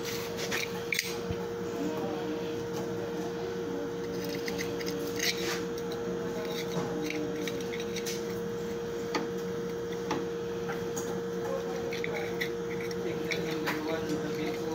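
Light metal clicks and taps as a hub is handled and fitted onto the keyed feed shaft of a drill press head, over a steady hum.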